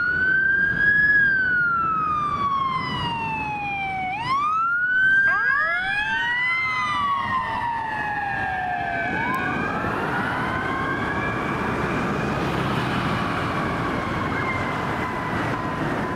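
Rescue ambulance siren on wail: slow rising-and-falling sweeps a few seconds each. Several sweeps overlap about four to six seconds in, then comes one long slow fall near the end as the ambulance moves away. Traffic and engine noise run underneath.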